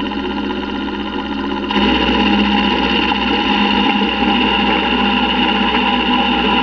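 Milling machine end mill cutting the inside of a T6 turbo exhaust flange port: a steady cutting whine over the machine's motor hum, which gets louder about two seconds in as the cut takes heavier.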